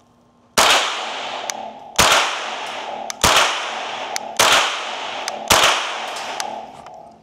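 Five unsuppressed .22 LR rifle shots from a Ruger 10/22 takedown, fired at an even pace a little over a second apart, each ringing on briefly afterwards. A few light ticks fall between the shots.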